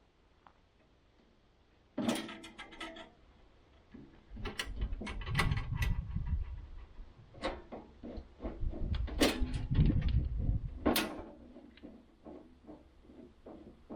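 Metal clanks, clicks and rattles from the sawmill being handled by hand while its blade is checked, starting about two seconds in, with heavier knocks and scraping through the middle.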